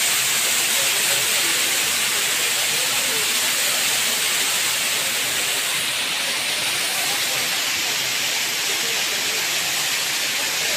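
Waterfall splashing down over rocks into a pool: a steady hiss of falling water.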